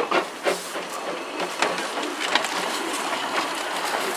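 Hunslet 0-4-0 saddle tank steam locomotive moving slowly on narrow-gauge track. Irregular clicks and knocks in the first couple of seconds give way to a steadier mechanical noise as it comes close.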